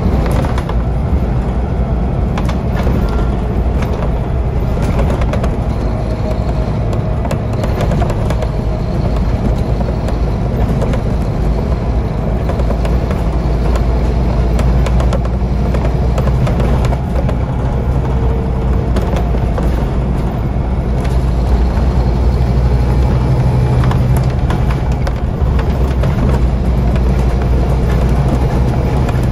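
Scania OmniCity double-decker bus's five-cylinder diesel engine running under way, heard from the seats above it as a steady low drone. It pulls a little harder in the second half, with light interior rattles over it.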